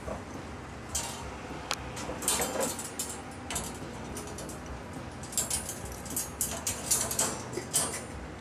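Wire pet cage rattling and creaking, with irregular sharp clicks and scrapes that come in a busier stretch about two seconds in and again through the second half.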